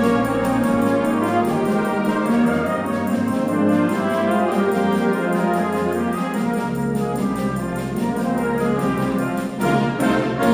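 Brass band playing: trombones, tubas and the other brass in sustained chords over a low bass line.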